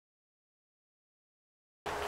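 Dead digital silence, with no sound at all, broken just before the end when steady outdoor background noise cuts in abruptly.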